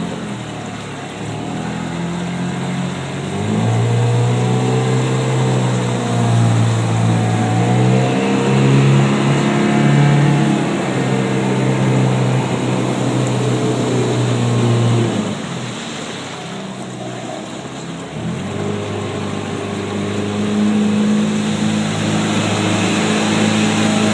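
An engine running steadily with a slowly shifting pitch. It eases off about two-thirds of the way through, then picks up again.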